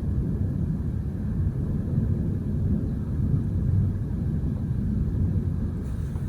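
Thunderstorm heard outdoors: a steady low rumble with no clear separate claps.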